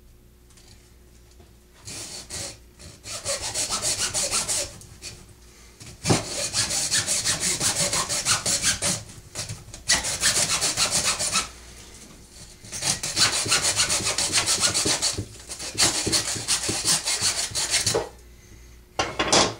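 Hacksaw cutting through the woody handle end of a broom in fast back-and-forth strokes, in four runs with short pauses between, and a brief last few strokes near the end.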